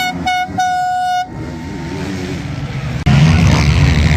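A horn sounds three toots on one steady high note, two short and then a longer one of about half a second. About three seconds in, a loud, dense wash of noise starts abruptly and keeps going.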